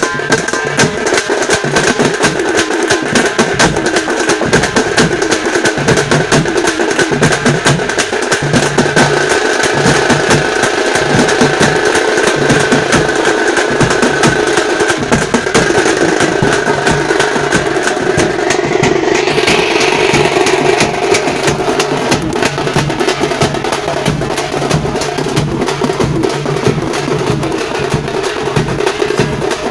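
Tamate frame drums beaten with sticks in a fast, dense, steady rhythm.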